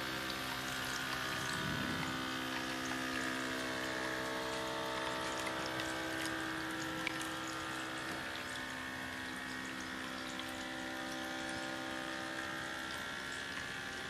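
Water pouring and trickling down a tabletop fountain's cascade of small clay cups into a basin, with fine splashing. Under it runs a steady hum from the fountain's small electric water pump.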